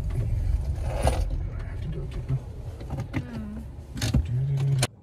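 Low rumble of a car cabin while the car runs, with a few sharp clicks and a couple of brief low tones in the last couple of seconds; the sound cuts off suddenly just before the end.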